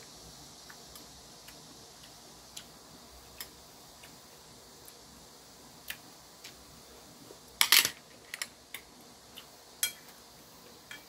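Metal chopsticks and a spoon tapping and clinking against ceramic bowls during a meal: scattered light clicks, with a louder clatter about eight seconds in and another sharp clink near ten seconds.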